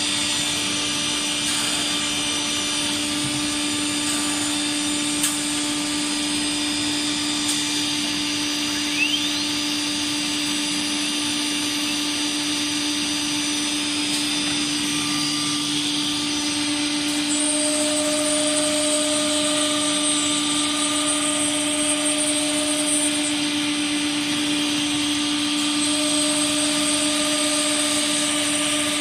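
CNC nesting router running: a steady machine hum with a constant tone and high whine, growing slightly louder as an extra high whine comes in about seventeen seconds in, then drops out and returns.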